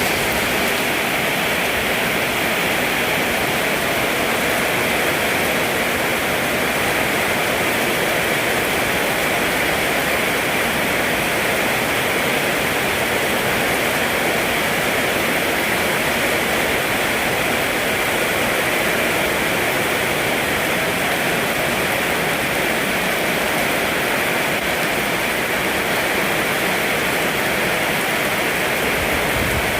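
Steady heavy rain falling, an even dense hiss that doesn't let up.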